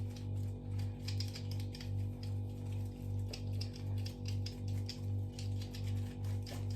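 Quick irregular clicks and light scratching of a small cleaning brush worked over the opened head of an electric shaver, over a steady low electrical hum that swells about three times a second.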